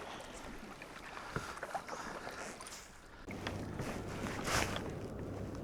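Water washing around a sea fishing kayak, a steady noisy sound. About three seconds in a low steady hum joins it, with a brief swish of water about a second later.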